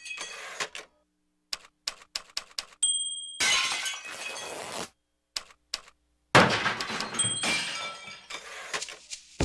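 Glass shattering sound effects: two crashes, about three seconds in and about six seconds in, each ringing down over a second or two, with scattered small clinks and ticks between them.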